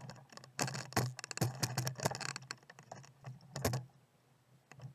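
A handful of knocks and rattles as a small 3 hp Evinrude outboard motor is handled on the dinghy's transom, its clamps and housing clattering.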